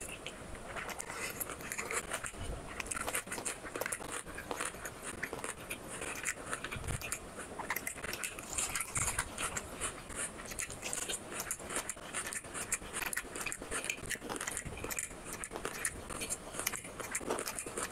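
Close-miked chewing of rice, chicken curry and raw onion eaten by hand: a dense, irregular run of small mouth clicks and crunches.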